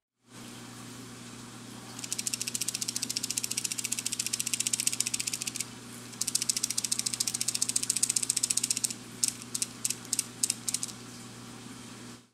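The internal rattle of an Imakatsu Alive Chatter plug shaken by hand: rapid clicking in two runs of about three seconds each with a short break between, then a handful of slower single clacks near the end. A steady low hum runs underneath.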